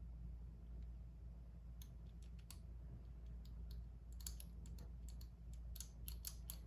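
Small clicks from the number wheels of a Master Lock M175 four-dial combination padlock being turned: a few about two seconds in, then a quick run of clicks from about four seconds in. The wheels are being tried while the shackle is pulled, feeling for slop that gives away the combination.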